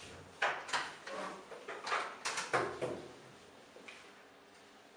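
Footsteps and a door being handled as someone leaves the room: a run of irregular knocks and clunks over the first three seconds, then one faint knock near the end.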